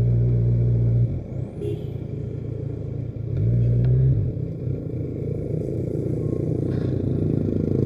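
Motorcycle engine running as the bike rides along, heard from a helmet-mounted camera, with a steady rushing noise underneath. The engine note is louder for about a second at the start and again around three and a half seconds in.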